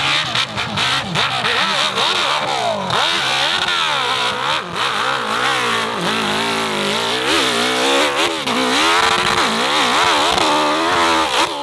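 Off-road motorcycle engine revving hard under load, climbing a steep slope. Its pitch swings up and down again and again as the throttle is worked.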